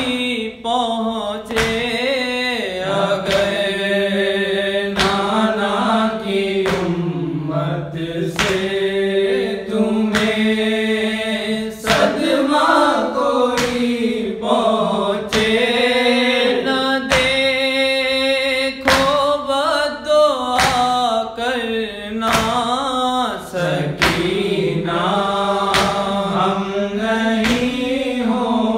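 Solo male voice reciting an Urdu noha, a slow, sung mourning lament with long held, wavering notes, over a steady beat about once a second.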